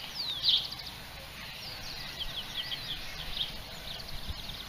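Birds calling: quick high chirps and short whistled notes that sweep down in pitch, the loudest about half a second in, over low steady background noise.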